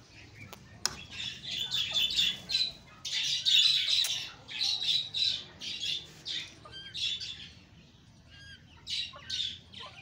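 Birds squawking in a busy run of harsh, rapid calls, with a few short thin chirps mixed in. The calls ease off for a moment and pick up again near the end.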